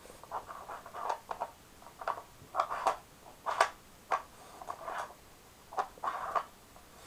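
A Cavalier King Charles Spaniel nosing at a plastic treat-puzzle toy, making irregular short scrapes and clicks, about a dozen of them, as it works at the pieces hiding the treats.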